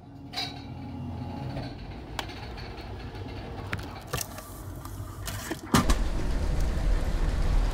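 Meal vending machine's delivery mechanism running with a faint hum and a few sharp clicks as it brings a boxed meal to the hatch. About six seconds in, a sudden louder low rumble takes over.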